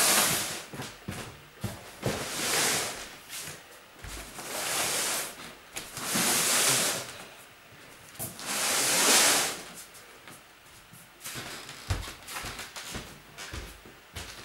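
Boxes and bags being handled and shifted: five rustling, scraping swells of about a second each, then a run of scattered light knocks and clicks in the last few seconds.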